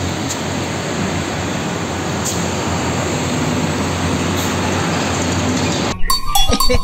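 Road traffic with diesel concrete mixer trucks and motorbikes driving past: a steady rumble of engines and tyres. About six seconds in it cuts off abruptly, and music with cartoon sound effects begins.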